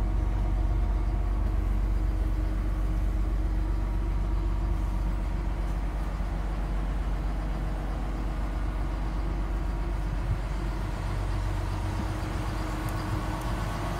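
Steady low droning hum of machinery running aboard the ship, with a few faint knocks near the end.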